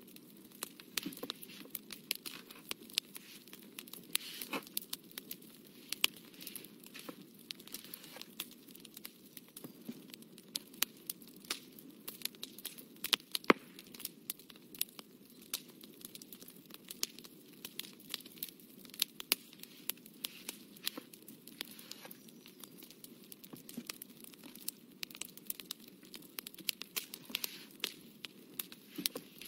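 Fine painting tool dabbing and scratching on watercolour paper close to the microphone: a run of irregular small clicks and taps over a faint steady hiss, one tap louder about halfway through.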